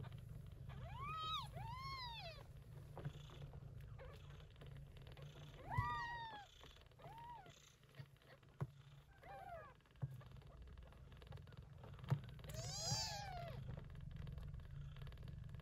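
Newborn kittens mewing: about six short, high-pitched mews, each rising and falling in pitch, spaced a second or more apart, over a low steady hum.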